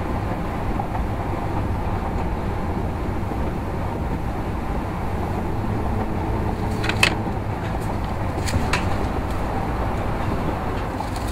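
Steady road and engine noise inside the cab of a moving Ford cargo van. A few sharp clicks or rattles come about seven seconds in and again around eight and a half seconds.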